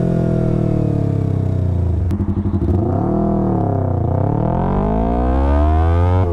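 Yamaha R3 parallel-twin engine through a full Akrapovic exhaust, revs falling as the bike slows for about three seconds. A brief blip and a few clicks come in that stretch, then the engine revs up steadily under acceleration from about four seconds in.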